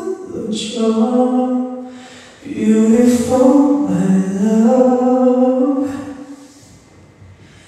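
A man singing a cappella, with long held notes sliding between pitches: one phrase breaks off about two seconds in, a second phrase follows and fades out near the end.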